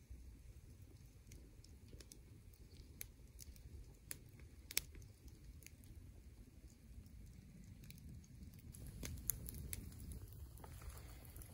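Quiet winter woodland ambience: a faint low rumble of wind with scattered sharp ticks and pops, a little louder near the end.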